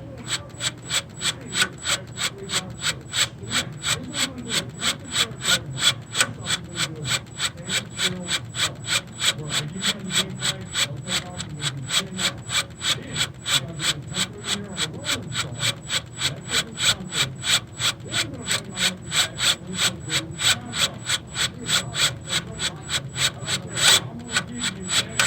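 A left-handed drill bit grinding into a seized EGR bolt, rasping in an even pulse of about two to three strokes a second as it tries to bite. There is one louder scrape near the end.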